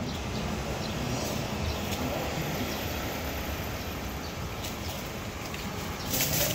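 Steady low outdoor rumble, with a few faint clicks, and a brief louder rustle of dry leaf litter near the end as a kitten scrambles through it.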